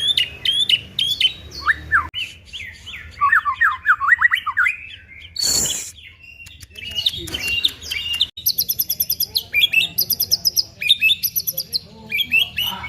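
White-rumped shama singing a varied, fast song of chirps, slurred whistles and rapid trills of repeated high notes, its repertoire including mimicry of a female prinia's call. A short rushing burst of noise cuts in about halfway.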